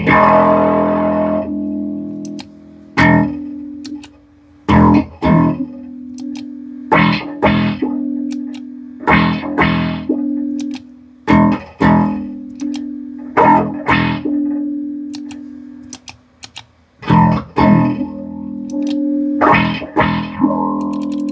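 Plucked string notes played through a Source Audio Soundblox 2 Manta Bass Filter pedal, its filter effect shaping each note. A new note or quick pair of notes starts every one to two seconds over held low notes. The pedal is working after a repair of its footswitches.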